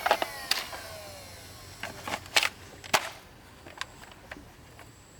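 A toy gun's electronic sound effect, a falling tone, fading out in the first second. Then a few sharp plastic clicks and taps from the toy being handled, the loudest two about two and a half and three seconds in.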